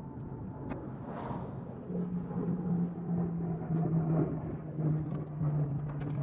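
A motor vehicle's engine droning in a steady low hum from about two seconds in, with scattered light clicks over it.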